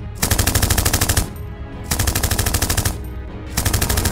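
Three bursts of rapid automatic gunfire, each about a second long with short pauses between, over a low steady rumble.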